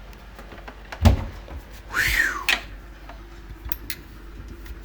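Front-loading washing machine door being opened after the cycle: a sharp thump as the latch lets go about a second in, then a brief scraping rush as the door and its rubber seal swing free.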